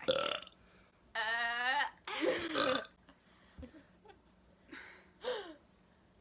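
A person burping on purpose after swallowing air. There is a short burp right at the start, then a long, steady burp about a second in and another just after, followed by a few small, faint ones.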